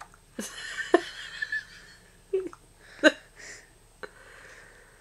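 Baby hiccupping: a series of short, sharp hiccups over the first three seconds, the loudest about one and three seconds in, with breathy sounds between them.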